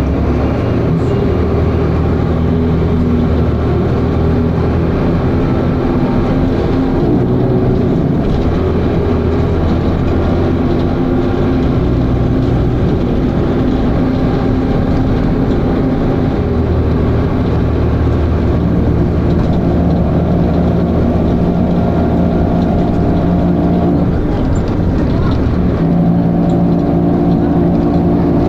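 Dennis Arrow bus's diesel engine and ZF automatic gearbox heard from on board while driving, the engine note climbing and dropping in steps every few seconds as it revs and shifts. The uploader puts the over-revving between shifts down to a slipping ZF gearbox.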